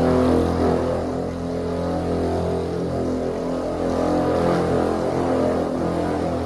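Electric paint buffer running steadily with a constant motor hum as it polishes compound into car paint.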